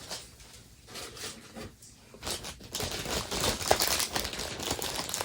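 Plastic packaging rustling and crinkling with light clicks of small toys being handled, sparse at first and busier from about three seconds in.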